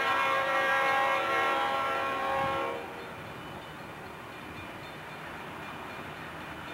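Diesel locomotive's air horn sounding a long blast that cuts off about three seconds in, leaving the lower rumble of the approaching train, before the horn starts again at the very end.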